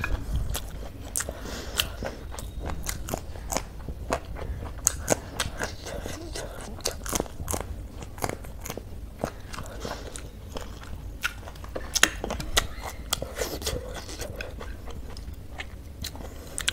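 Close-miked chewing of spicy chow mein with raw vegetables: wet mouth sounds and crunching, with many sharp irregular clicks.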